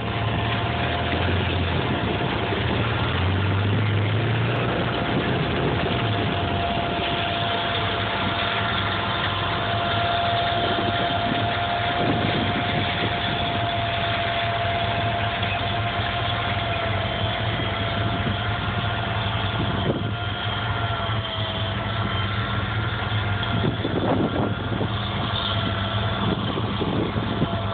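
Big four-wheel-drive articulated tractor's diesel engine running steadily under load as it pulls a 32-row, 80-ft corn planter, with a steady high whine over the low engine drone.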